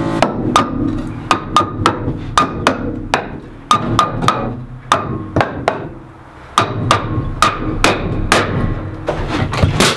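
Hammer driving nails into wooden framing strips: a fast run of sharp, ringing strikes, about three a second, with two short pauses.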